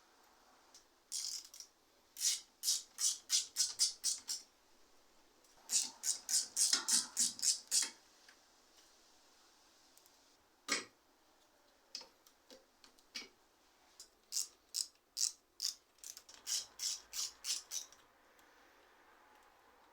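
Ratchet mechanism clicking in three runs of sharp, evenly spaced clicks, about four a second, with a single louder click in between.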